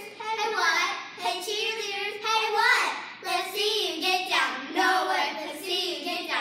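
Young girls chanting a cheer together in a rhythmic sing-song, phrase after phrase, with short gaps between the lines.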